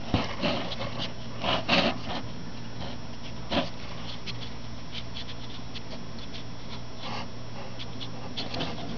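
Rustling and light scratching in the hay and wood-shaving bedding of a brooder box, in short scattered bursts that are busiest in the first two seconds, over a steady low hum.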